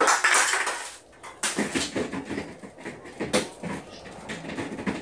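Rummaging inside a chest freezer: a rustling burst in the first second, then a run of knocks and clatters as things are moved about.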